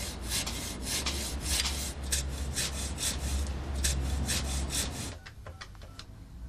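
Wood being sawn by hand: rhythmic rasping strokes, about three a second, over a low hum, stopping about five seconds in. Then come a few faint clicks of telephone keys being pressed.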